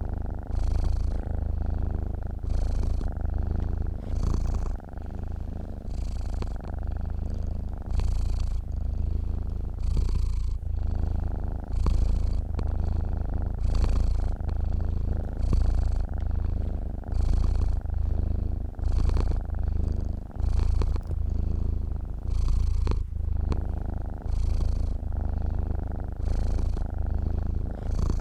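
Domestic cat purring steadily while asleep: a continuous low rumble that swells and eases with its breathing, about once a second.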